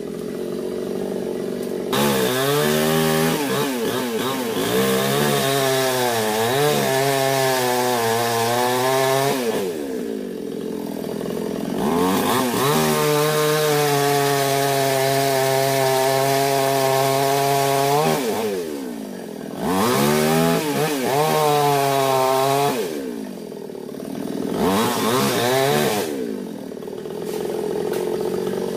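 Two-stroke chainsaw with a 22-inch bar cutting rosewood branches. It is opened to full throttle four times, for about two to seven seconds each, and falls back to idle in between. In the first and longest run its pitch sags and wavers as the chain works into the wood.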